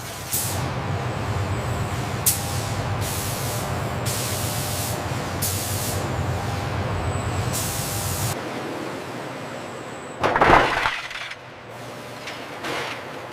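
Steady low rumble of factory machinery with about six short bursts of compressed air hissing, one of them lasting about a second; the rumble and hissing stop about eight seconds in. About ten seconds in there is one loud clank.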